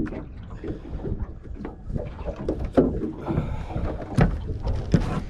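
Wind rumbling on the microphone on an open boat deck, with scattered knocks and clatter from people stepping about and handling a landed fish in a net on the deck; the sharpest knocks come about four seconds in and again near the end.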